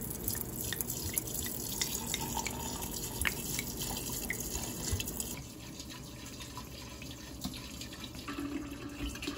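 Awamori (44% spirit) poured from a bottle into a large glass jar of sea snakes: a steady splashing pour that stops about five seconds in.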